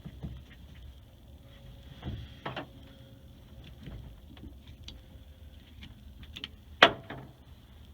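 Scattered small clicks and scrapes from handling and cleaning a removed air brake valve, with one sharp knock about seven seconds in.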